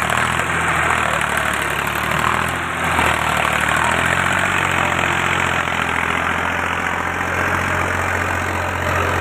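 Diesel tractor engine of a Massey Ferguson 241 DI running steadily under load while it pulls a loaded trailer through mud; its note shifts about four seconds in.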